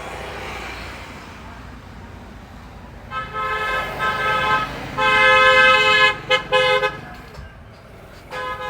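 A vehicle horn honking in several blasts: short toots, a long blast of about a second, then a few quick toots and one more near the end, over a low steady traffic hum.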